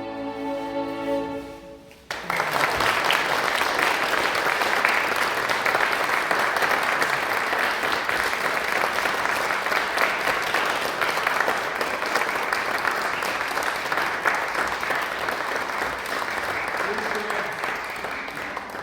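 The last held chord of violins and piano dies away. About two seconds in, an audience breaks into steady applause that tails off near the end.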